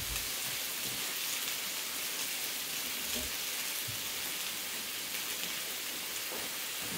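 Vegetables sizzling steadily as they fry in oil in a pan, with a soft knock right at the start.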